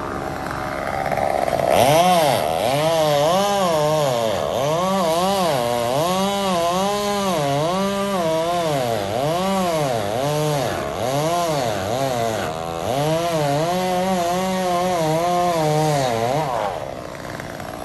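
Chainsaw cutting through a wooden utility pole lying on the ground. Its engine pitch rises and falls over and over, a little more than once a second, as the chain bites into the wood. It starts about two seconds in and stops shortly before the end.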